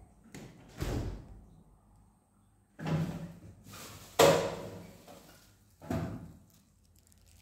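About five separate knocks and bangs from household handling, each dying away quickly; the loudest comes a little past four seconds in.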